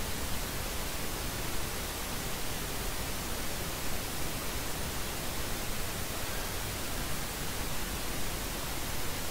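Steady hiss of background noise, even and unchanging, with no distinct sound standing out above it.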